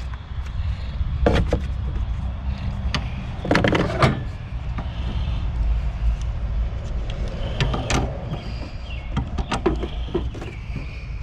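Hand tools, a wrench and channel-lock pliers, clinking and knocking against a metal A/C line fitting as it is worked loose. Scattered sharp clicks and knocks, the densest cluster a few seconds in, over a steady low hum.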